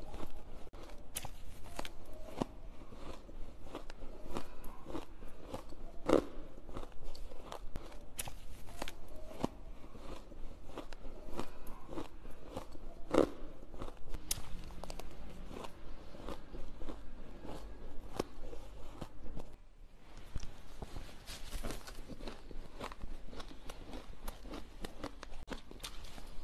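A person biting into ice close to a lapel microphone: a run of sharp, crisp crunches at irregular spacing, with chewing between bites and a brief pause about twenty seconds in.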